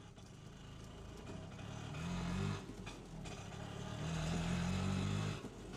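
Auto-rickshaw engine running as it approaches, getting louder, with two bursts of throttle about two and four seconds in.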